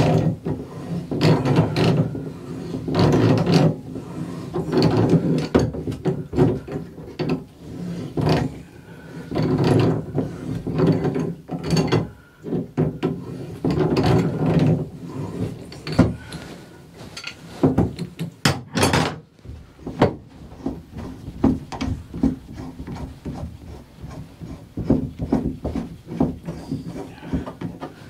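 Channel-lock pliers turning the forcing nut of a Moen cartridge puller, with metal creaking, scraping and clicking in irregular strokes as a stuck Moen 1225 shower cartridge is drawn out of its valve body.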